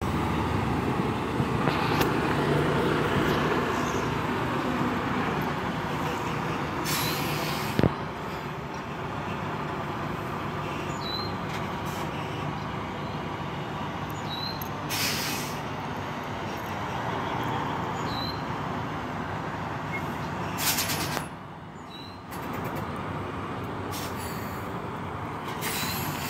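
Semi-truck's diesel engine running steadily at low revs as the tractor-trailer backs slowly, with several short bursts of hiss and a sharp click about eight seconds in.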